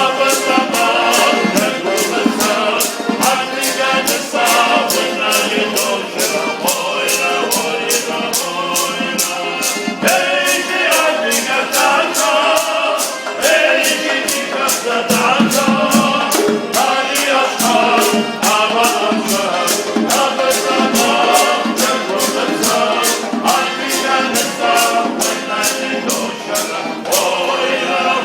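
Music: a group of voices singing together over a steady percussive beat of about two hits a second.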